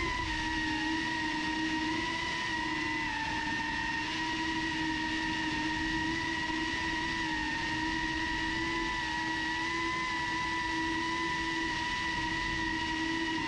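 Small camera drone's motors and propellers whining steadily, a held hum with a few slight shifts in pitch.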